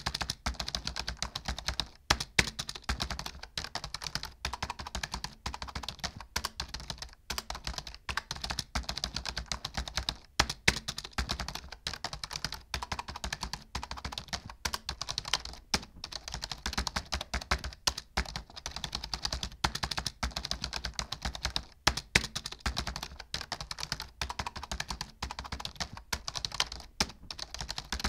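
Rapid, continuous typing on a computer keyboard, the keys clicking several times a second with a few brief pauses.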